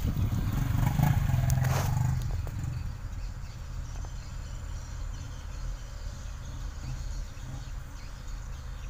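Motor vehicle engines running as a steady low rumble, louder over the first two seconds, then settling. The vehicles are motorcycles riding through floodwater and a container truck approaching.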